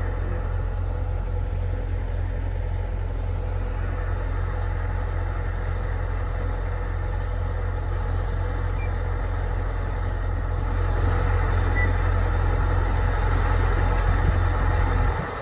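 Steady drone of a Kubota DC105X combine harvester's diesel engine and threshing machinery working through rice, getting a little louder about eleven seconds in.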